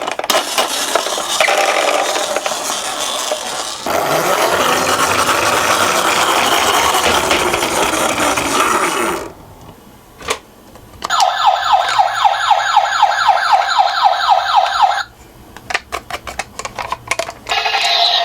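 Toy ambulance minicar's electronic siren, a fast, evenly repeating pitch sweep, heard clearly for about four seconds past the middle. It sits among the clattering and rolling noise of plastic minicars running down a slope, with short quiet gaps of clicks.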